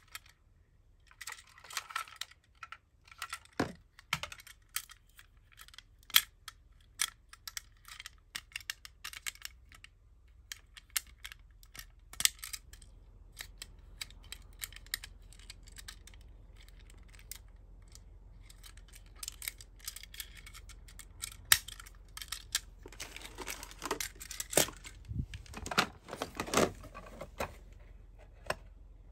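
Small die-cast toy cars being handled: scattered sharp clicks and taps of little metal and plastic parts. Near the end come several seconds of denser rustling and crinkling as a toy's cardboard-and-plastic box is handled.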